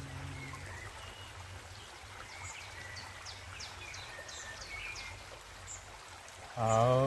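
A man's low chanted 'om' fades out about half a second in, leaving a flowing creek and birds chirping. Near the end a new 'om' begins with a short rise in pitch and is the loudest sound.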